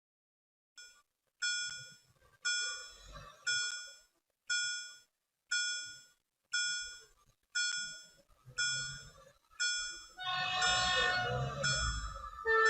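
Railroad crossing warning bell dinging about once a second, each ring fading away. About ten seconds in, an approaching train's horn starts and holds.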